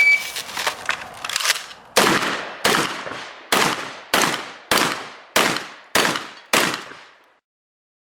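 Shotgun fired rapidly in a practical shooting stage: a few fainter cracks in the first second and a half, then eight loud shots in a steady string about six-tenths of a second apart.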